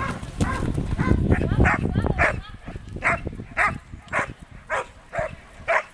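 A dog barking in short, sharp barks, about two a second, starting about a second and a half in, over a low rumble in the first two seconds.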